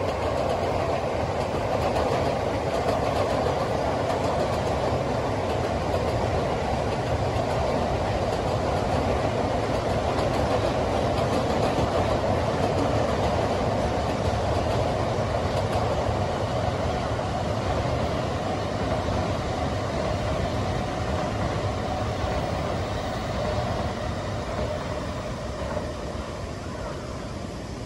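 Commuter electric train running past on the tracks: a steady rumble of wheels on rails that fades away over the last few seconds.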